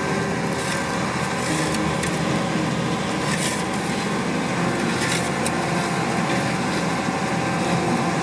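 Asphalt paver's diesel engine running steadily as it lays asphalt, with a few brief scrapes of a shovel working the loose asphalt.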